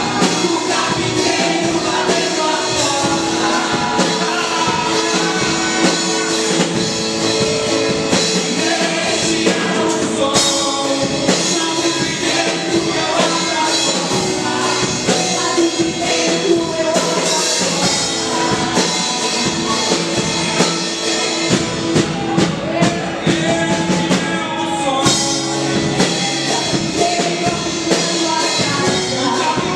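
Christian worship song played by a band with drums, with singing voices over it.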